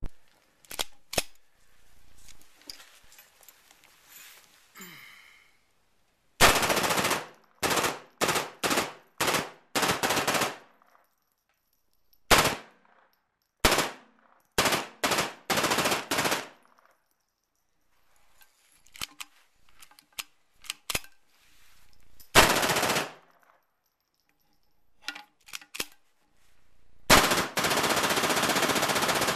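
Tippmann .22 LR belt-fed M1919-style machine gun firing full-auto: a string of short bursts, most under a second long, and one longer burst of about two seconds near the end. A few light metallic clicks of the gun being handled come in the first seconds.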